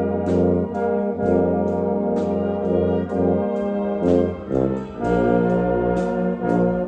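Youth concert band playing held brass chords over a low tuba bass line (a St. Petersburg 202 tuba), with regular high percussion ticks about two a second. The harmony slides and moves to a new chord about four and a half to five seconds in.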